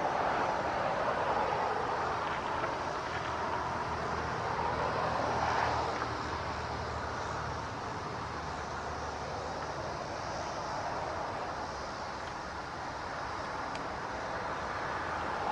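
Several Federal Signal DSA electronic warning sirens sounding a weekly test, a steady mid-pitched tone that swells in loudness to a peak about five seconds in and then eases off, with a low steady hum underneath.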